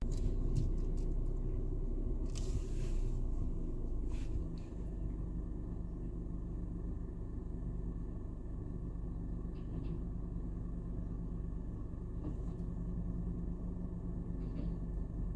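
Fanotech rear-loader garbage truck's diesel engine idling with a steady low drone. A few knocks and a short hiss in the first five seconds.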